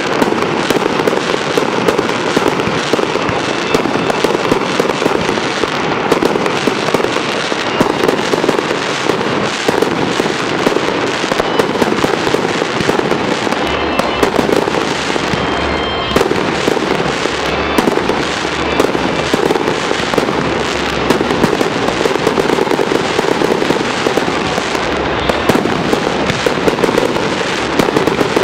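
Aerial fireworks display, with many shells bursting, popping and crackling over one another in quick succession without a pause.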